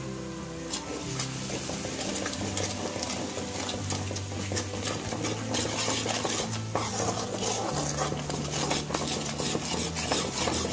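A metal spoon stirring and scraping ground spices frying in oil in a metal kadai, with a light sizzle of the oil. The scrapes start about a second in and come quickly and irregularly.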